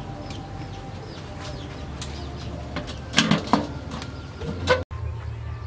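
Aluminium lid being set onto a metal wok over a steaming tin, a clattering clank about three seconds in and a short metallic knock near the end, with birds chirping faintly.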